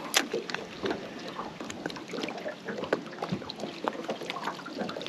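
Irregular light taps, clicks and small water slaps around a small fishing boat's hull, as the boat is moved on the water.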